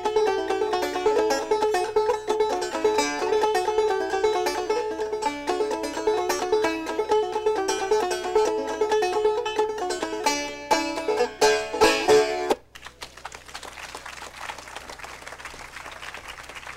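Solo banjo picking a fast old-time tune, finishing with a few final strokes about twelve and a half seconds in; audience applause follows.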